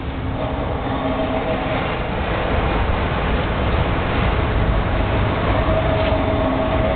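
Steady low vehicle rumble with a hiss over it, growing a little louder about two seconds in.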